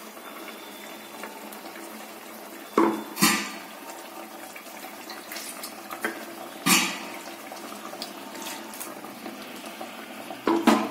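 Bitter gourd tamarind curry simmering in a pan, with coconut milk just added: a steady bubbling hiss, broken by a few louder sudden sounds about three seconds in, near seven seconds, and near the end.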